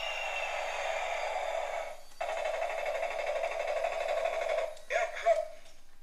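Electronic sound effect played through the small speaker of a battery-powered transforming airplane-robot toy, tinny and steady. It cuts out briefly about two seconds in, then restarts with a fast pulsing. Near the end it stops after a couple of short knocks of the plastic toy being handled.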